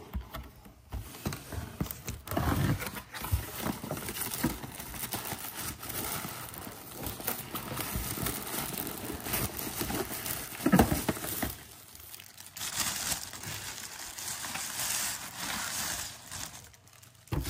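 Thin white plastic wrapping rustling and crinkling as it is handled and pulled out of a cardboard box, with cardboard flaps and insert sliding and knocking; the sharpest knock comes about eleven seconds in.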